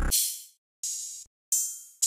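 Three open hi-hat samples from a drum kit, previewed one after another. Each is a bright hiss that fades out over about half a second.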